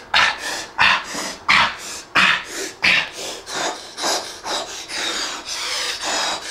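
A young man huffing hard through his mouth while doing push-ups, in quick, even, noisy breaths of about three a second. Near the end the breaths turn longer and more drawn out.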